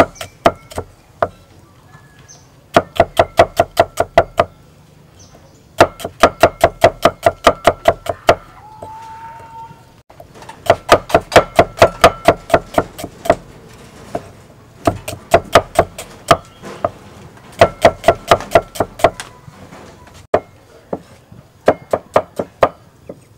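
Cleaver slicing shallots on a thick wooden chopping block: quick, sharp knocks of the blade hitting the wood, about five a second, in runs of one to three seconds with short pauses between.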